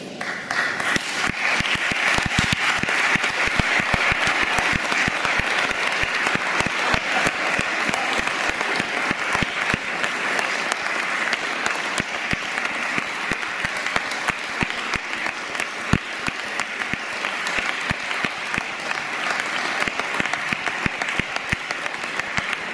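A crowd applauding: a long round of many people clapping that starts suddenly and eases off slightly toward the end.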